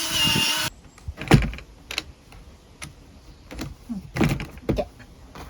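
A power tool whirs briefly and cuts off under a second in. Then come scattered sharp knocks and clicks of hand work on the camper shell.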